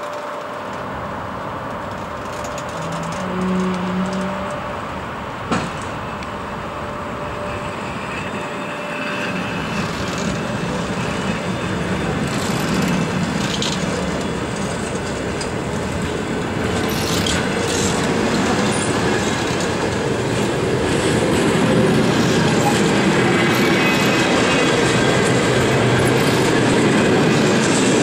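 Passenger coaches of a train rolling past, their wheels rumbling and clattering on the rails and growing steadily louder as the train picks up speed, with faint high wheel squeals. A single sharp knock about five seconds in.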